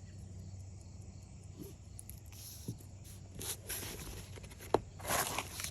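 Packaging rustling and crinkling as a parcel is handled, starting a little past halfway, with a sharp click near the end. Crickets chirp steadily in the background.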